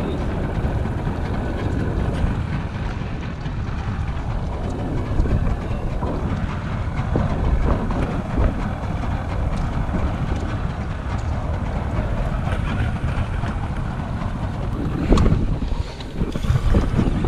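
Steady low rumbling of wind and water around a small boat, with scattered light clicks and one sharp knock about fifteen seconds in.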